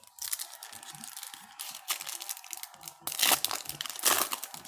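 Foil wrapper of a 2006 Bowman Chrome football card pack crinkling as it is handled, with two louder rips about three and four seconds in as the pack is torn open.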